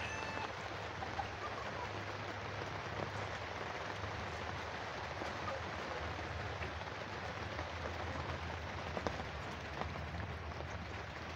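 Steady tropical-storm rain falling on and around a chicken coop, with a few faint short chicken calls.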